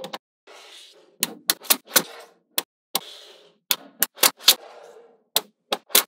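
Small magnetic balls snapping together one at a time in sharp, irregular clicks, about a dozen, with a soft rattle of balls shifting between the clicks.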